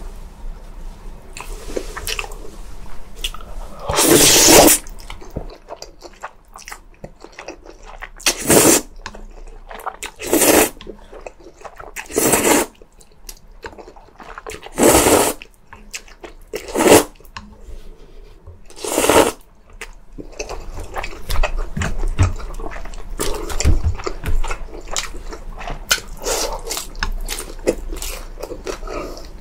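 Noodles of jjajangmyeon or jjamppong slurped in about seven loud, half-second slurps, then chewing with many small wet clicks and crackles during the last third.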